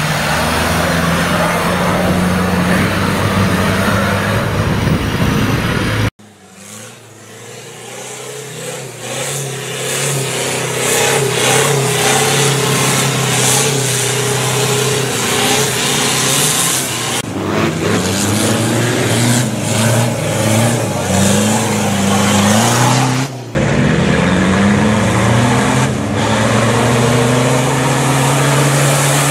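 Off-road trial 4x4 engines revving hard as they climb steep rocky slopes, the pitch rising and falling with the throttle. The sound changes abruptly twice as the scene cuts from one vehicle to another.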